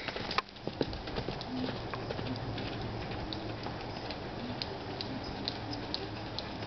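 Appaloosa filly's hooves beating on loose dirt and sand as she trots and canters, a soft, irregular patter of hoofbeats over steady background noise.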